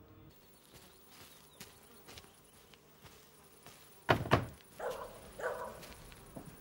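Two hard knocks on a wooden front door, then a dog barking a few times.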